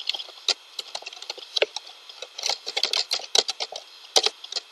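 Typing on a computer keyboard: quick, irregular keystroke clicks.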